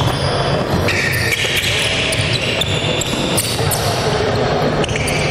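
Basketball bouncing and being passed on a hardwood gym floor, with players' shoes moving on the court during a team drill: a run of sharp knocks and short high squeaks.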